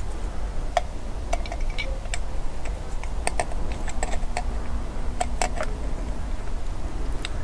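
Light, irregular clicks and taps of a small metal carburettor body and its parts being handled and fitted together by hand, over a steady low hum.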